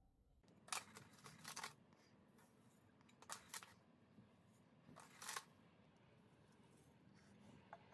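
Faint rustling of a plastic cup scooping and pouring dry granular material into a wire-mesh sieve, in three short bursts about two seconds apart, over a faint low hum.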